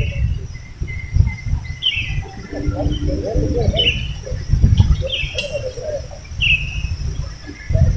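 A bird calling repeatedly: about five short chirps, each falling in pitch, spaced a second or two apart. An uneven low rumble runs underneath and is the loudest thing.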